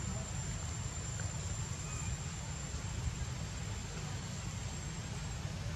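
Outdoor background noise: a steady, uneven low rumble with a thin, steady high-pitched whine that fades out near the end.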